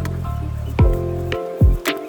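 Background music: a produced track with a steady beat, deep bass and plucked, chiming notes.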